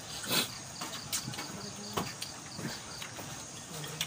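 People eating with their hands from bowls: a few short smacks and clicks of chewing and of fingers and food against the dishes. Under them an insect trills steadily in even pulses.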